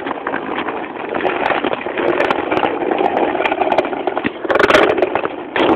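Skateboard wheels rolling over rough asphalt: a steady rumble with scattered clicks, growing sharper and louder briefly near the end.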